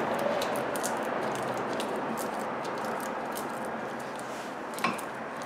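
Faint scattered metal clicks and rattles of a gloved hand handling a car's front brake caliper and its bolts, with one sharper click near the end, over a steady background hiss.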